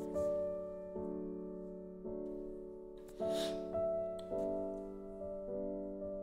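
Background piano music: soft chords struck about once a second, each ringing on and fading.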